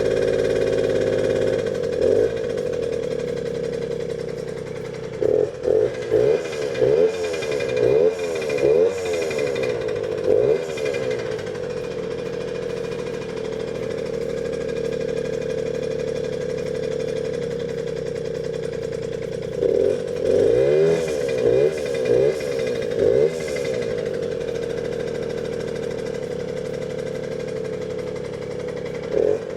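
Suzuki JR50's small two-stroke single-cylinder engine running steadily on a newly fitted carburettor, blipped with the throttle in short revs that rise and fall: a cluster about a fifth of the way in, another past halfway, and more near the end.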